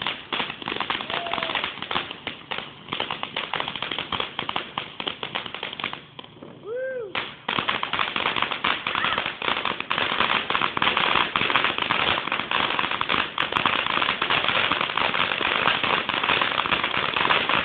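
Ground firework fountain spraying sparks with dense, rapid crackling. The crackle thins out briefly about six seconds in, then comes back louder and denser.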